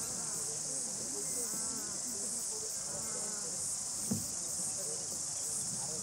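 Steady high-pitched chirring of an insect chorus, with one brief thump about four seconds in.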